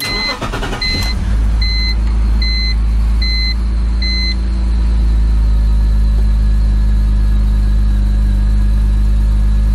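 BMW M54B30 inline-six cold start: it cranks briefly, catches about a second in and settles into a steady, smooth idle. The instrument-cluster warning chime beeps about every three-quarters of a second over the first four seconds.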